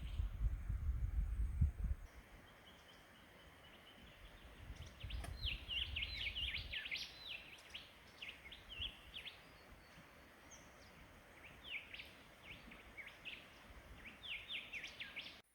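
Small birds chirping and twittering in many short, quick calls, thickest about five seconds in and again near the end, over a faint steady wash of a small stream. Wind rumbles on the microphone in the first two seconds and again around five to seven seconds in.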